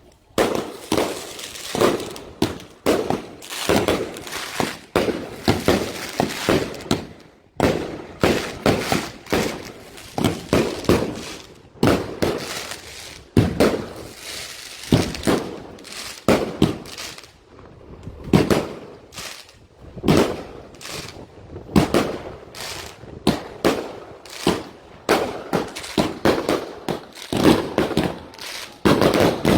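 Fireworks and firecrackers going off, a rapid irregular string of sharp bangs and pops, several a second, with short gaps between volleys.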